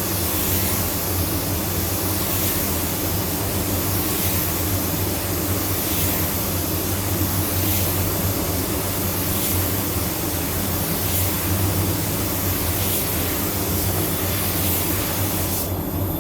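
Automotive paint spray gun hissing as it lays on a coat of clear over a candy paint job. The hiss swells about every one and a half to two seconds, over a steady low hum, and cuts off just before the end.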